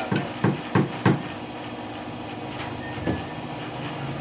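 Four sharp knocks in quick succession in the first second, then one more about three seconds in, over a steady low machine hum.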